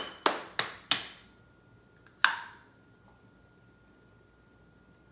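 Four sharp knocks on a glass baby-food jar, about a third of a second apart, as a hand strikes it to loosen the metal lid. About two seconds later comes one more click with a brief ringing tone.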